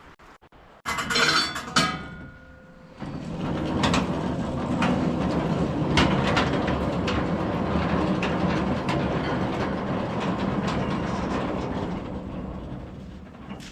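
Portable sawmill running with a steady metallic rattle and clatter for about ten seconds, fading near the end, after a short squealing clank about a second in.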